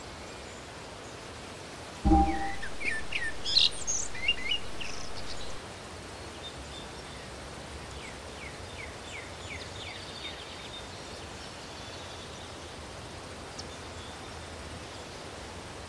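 Birds chirping in quick short calls over a steady background hiss. About two seconds in, a sudden thump starts a low rumble that lasts about three and a half seconds, and more chirps follow later.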